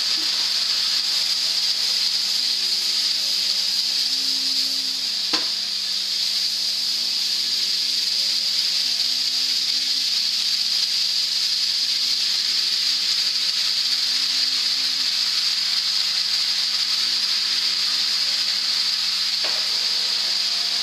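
Stir-fry of meat and vegetables sizzling steadily in a frying pan as it is turned with a wooden spatula, with a sharp knock about five seconds in.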